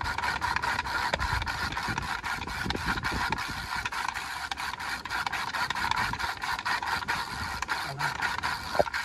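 Kite-line reel turning, with a rapid, even clicking of about five or six a second over a rasping hiss of line running.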